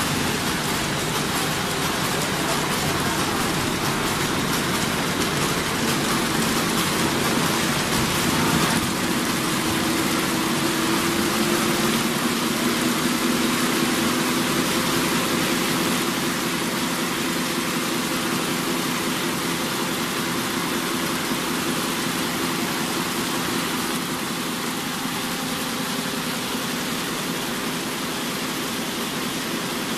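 Rope braiding machine running, its bobbin carriers circling on the track under an electric motor: a steady, even mechanical noise with a low hum beneath it.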